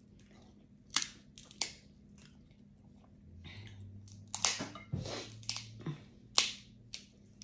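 Cooked crab leg shells being cracked and snapped apart by hand: a string of sharp cracks, the loudest about a second in, again half a second later, and three more from about four and a half to six and a half seconds in, with smaller crunches between.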